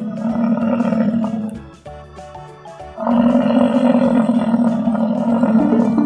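Bison bellowing: two long, deep, rough calls, the first ending about one and a half seconds in and the second starting about three seconds in. Light background music plays underneath.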